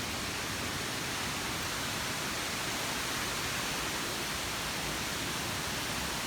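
Steady rushing of a waterfall, an even wash of falling-water noise.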